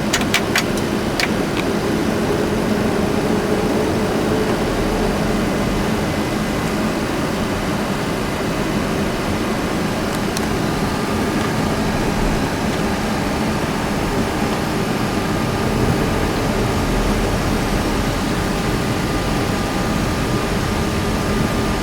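Steady cockpit hum of a Boeing 737-300 with its CFM56-3 engines running and the air conditioning blowing. A few sharp clicks come about a second in, and a faint steady tone joins about halfway through.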